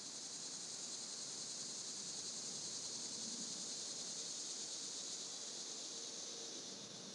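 Steady, high-pitched chorus of insects droning in the trees.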